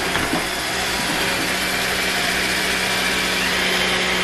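Roomba 614 robot vacuum running, its vacuum motor and brushes giving a steady whir while it carries a heavy portable carpet cleaner on its top. A steady hum runs under it and cuts off near the end.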